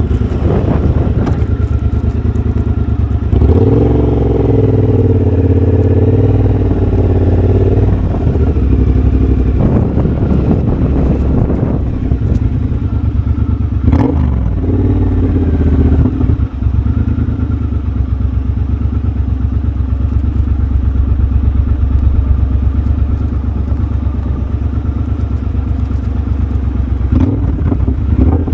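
De-catted 2023 Triumph Bobber 1200 parallel twin through a TEC X-pipe and Motone shorty exhaust, running loud under way, its note rising and falling with the throttle, with a brief drop in level about sixteen seconds in.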